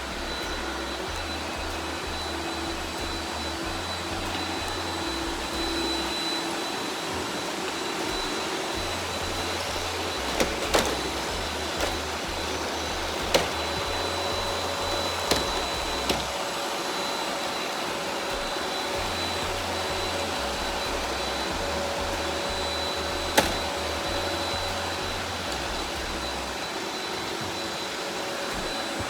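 Robot vacuum cleaner running steadily, its motor giving a steady high whine. A handful of sharp knocks come in the middle stretch.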